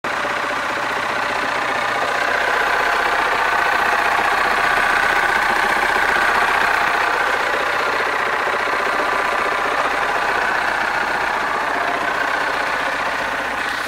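MerCruiser sterndrive boat engine idling steadily in neutral, heard from the open engine hatch, a little louder in the middle.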